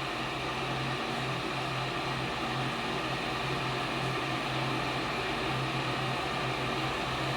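Xiaomi Electric Kettle 2 heating water: a steady rushing hiss over a constant low hum.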